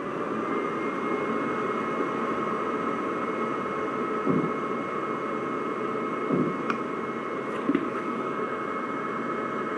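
Ultrasonic welding generator switched on and running, its cooling fan giving a steady hum and hiss with a thin constant whine. A few small bumps from handling the unit come partway through.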